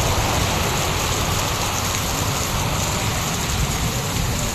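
Heavy rain and hail falling in a steady, even hiss, with no single strikes standing out.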